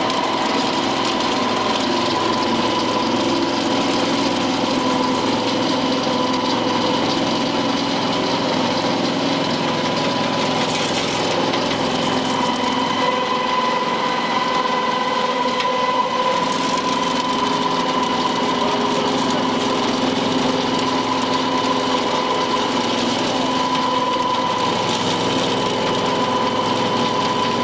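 Horizontal ring die feed pellet mill running steadily while producing pellets: a constant mechanical hum with a whine of several steady tones.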